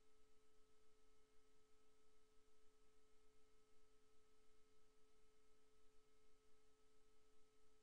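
Near silence: a faint steady hum of a few constant tones over low hiss.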